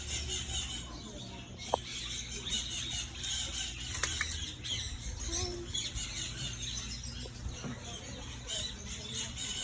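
Birds squawking and chirping in an aviary, a busy steady chatter, with two short sharp clicks about two and four seconds in.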